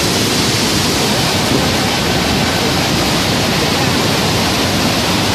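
Godavari river in flood: fast, swollen water rushing past in a loud, steady, unbroken wash of noise.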